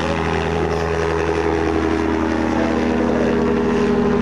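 Bailey-Moyes Dragonfly tug's engine and propeller running steadily at takeoff power as the aircraft rolls and lifts off.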